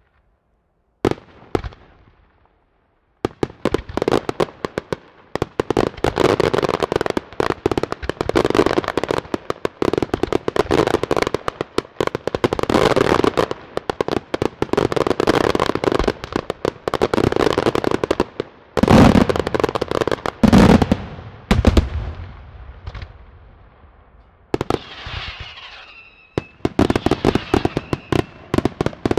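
Daytime display fireworks: a couple of single bangs, then a long, dense barrage of rapid crackling reports. About two-thirds of the way through come two heavy booms. Near the end there is a brief whistling, then another rapid barrage.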